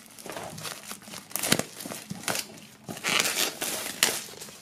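Plastic shrink-wrap film crinkling in irregular rustles as it is pulled off a box, with louder crackles about a second and a half in, around three seconds and about four seconds in.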